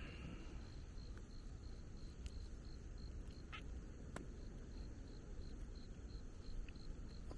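An insect chirping in an even rhythm, about three high chirps a second, over a faint low background haze, with a few soft clicks.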